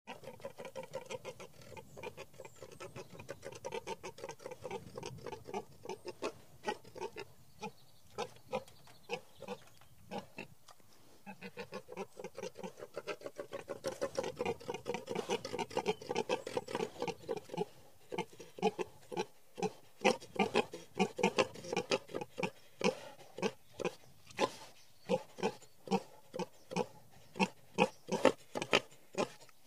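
Young wild boar grunting while rooting in leaf litter: a rapid run of short grunts, several a second, getting busier and louder about halfway through.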